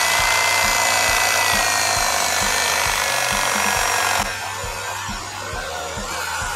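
Electric bread knife running with a high whine as its blades saw through old motorcycle seat foam; about four seconds in it becomes quieter.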